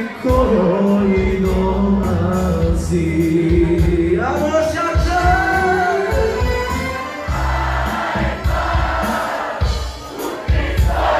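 Loud live band music with singing over a steady bass beat.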